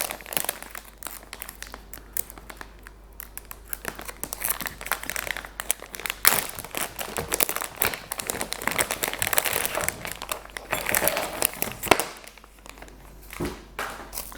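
Packaging crinkling and rustling as the soldering iron unit is handled and unwrapped, a busy run of quick crackles that thins out to a few scattered clicks near the end.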